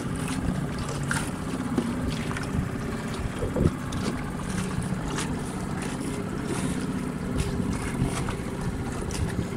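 Suzuki outboard motor running steadily as the small boat moves over the sea, with wind on the microphone. A single thump stands out about three and a half seconds in.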